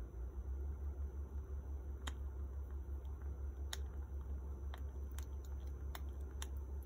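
Baby squirrel suckling milk from a feeding syringe, making small scattered wet clicks and smacks, over a steady low hum.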